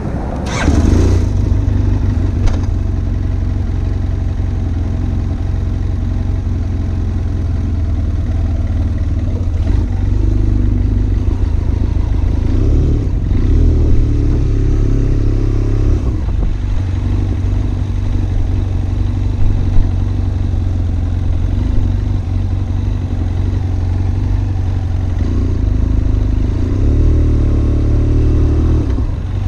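BMW F800ST's parallel-twin engine running, heard close from a recorder on the seat. The deep, steady engine note swells and rises a couple of times.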